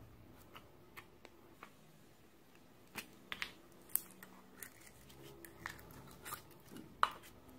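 Small plastic slime container handled and worked open by fingers: scattered plastic clicks and crackles, a cluster of sharp snaps about three to four seconds in and the loudest snap about seven seconds in.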